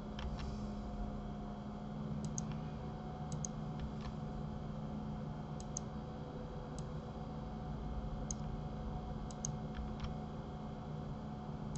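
Computer mouse and keyboard clicks, a dozen or so sharp clicks scattered irregularly, several in quick pairs, over a steady low hum.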